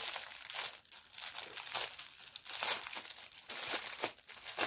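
Plastic wrapping crinkling in irregular rustles as it is pulled open and peeled off by hand.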